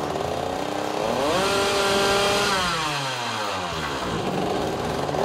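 Two-stroke motorcycle engine fitted with a Motoplat flywheel magneto ignition, revving. The revs climb about a second in, hold high, drop back, then climb again near the end.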